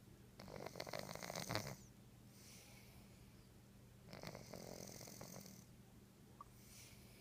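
Domestic cat snoring in its sleep: two snores about three and a half seconds apart, the first louder, with softer breaths between them.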